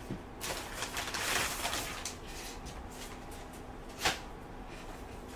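Kraft paper mailer rustling and crinkling as a boxed spot welder is slid out of it, then a single short tap about four seconds in as the box is set down on a silicone mat.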